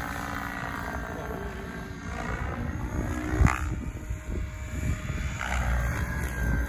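Electric SAB Kraken 700 RC helicopter in flight: the whine of its motor and drivetrain with the swish of its 690 mm main rotor blades, the pitch sliding down and back up as it manoeuvres. A sharp click about halfway through, and low wind rumble on the microphone near the end.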